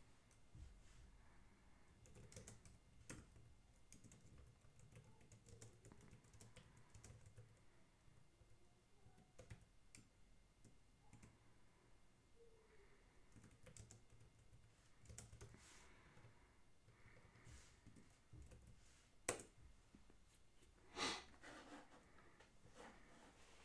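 Faint, scattered clicks of a computer keyboard being typed on, over a low steady hum, with a couple of louder knocks near the end.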